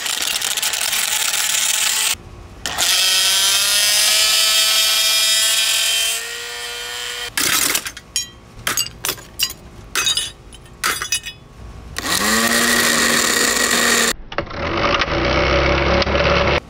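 A Black & Decker blender motor running with rocks in a broken glass jar, its whine rising slightly. Then a run of sharp clinks and knocks as glass and parts break and clatter. Near the end the motor spins up again and runs steadily, its drive coupling turning with no jar on.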